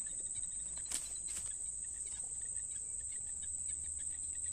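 Insects chirring in a steady, high-pitched drone, with two faint ticks about a second in.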